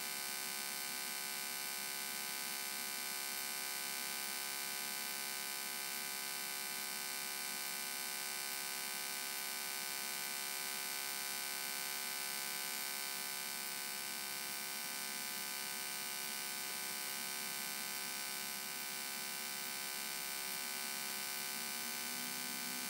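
Steady hum on the Cessna 172's cockpit intercom audio, the engine and electrical drone as picked up through the headset system.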